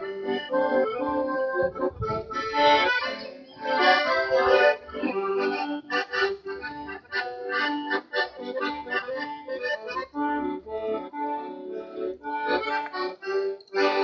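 Weltmeister piano accordion played solo: a brisk tune with a melody over chords and short bass notes.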